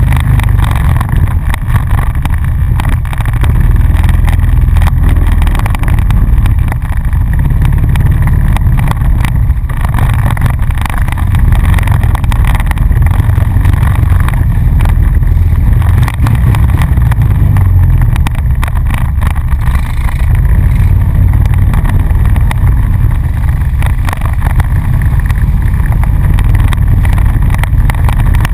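ATV engine running steadily at trail speed, a loud low rumble heard from the machine the camera rides on.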